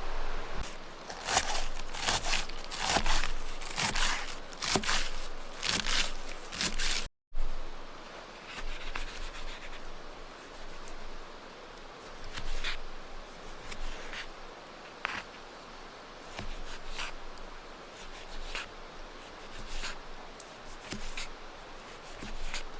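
Rustling and scraping strokes, quick and loud for the first several seconds. After an abrupt cut they come sparser and quieter over a faint steady hiss.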